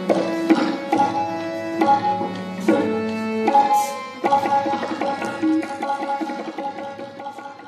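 Solo tabla playing quick strokes over a harmonium that holds melody notes, changing about once a second; the music fades out near the end.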